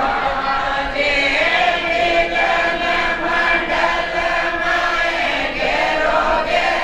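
Group of people singing a devotional chant together, sustained voices moving between held notes.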